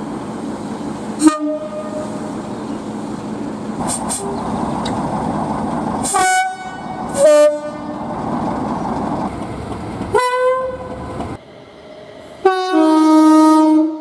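Class 33 diesel locomotive's engine running steadily while it sounds its two-tone horn: a short toot, then a high blast and a lower blast a second apart, then another blast. After a break, a Class 350 electric multiple unit sounds a loud two-note horn, a brief higher note dropping to a lower held one.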